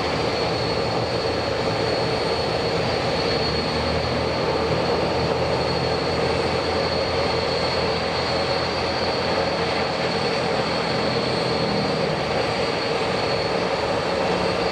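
The four Lycoming ALF502 turbofans of a British Aerospace BAe 146-200 running at low power on the ground, giving a steady engine noise with a constant high-pitched whine.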